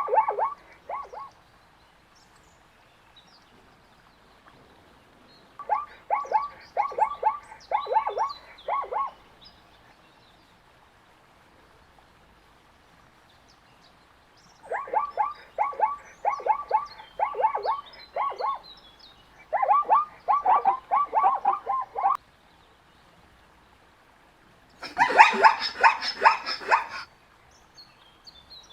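Zebra calling in bouts of rapid, repeated yelping barks, several a second, the typical zebra bark-bray; four bouts of one to four seconds each, then a harsher, noisier call near the end. Faint bird chirps between the calls.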